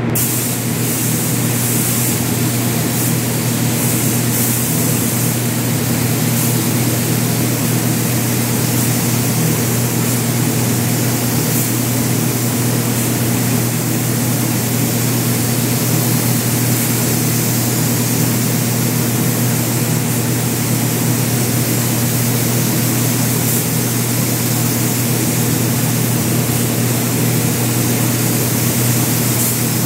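Spray booth ventilation fans running with a steady low drone, under the hiss of a gravity-feed spray gun laying on paint.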